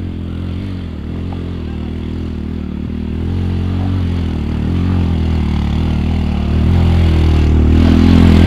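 Small off-road buggy's engine running as it drives down a dirt track, growing steadily louder as it approaches and comes close, its note wavering slightly with the throttle.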